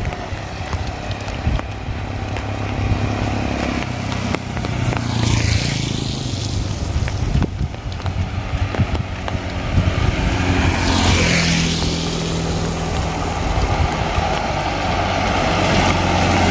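A motor vehicle's engine running nearby, steady and low, with swells of hiss about five seconds in and again near eleven seconds, as tyres pass over wet road in the rain.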